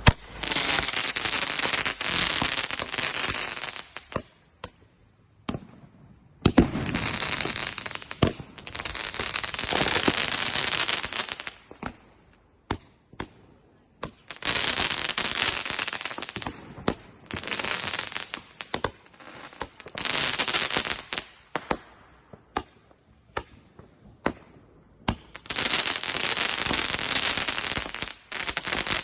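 Fireworks crackling in long dense spells of rapid pops, each a few seconds long, with single sharp bangs in the quieter gaps between them.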